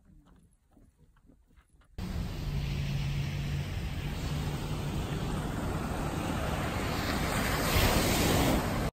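Ocean surf breaking on a beach, mixed with wind buffeting the microphone, cutting in suddenly about two seconds in after near silence. A low steady hum sits under the noise for a second or two.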